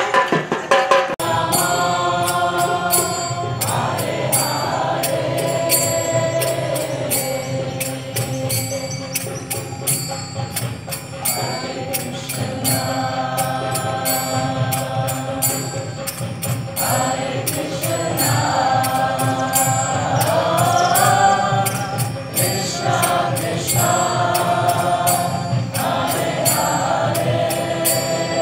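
Devotional chant sung to music, the voice gliding and holding long notes over a steady clicking percussion beat.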